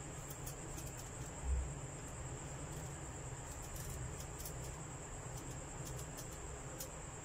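Apples being peeled by hand with a kitchen knife: faint scraping and soft ticks, with a low bump about one and a half seconds in, over a steady high-pitched whine.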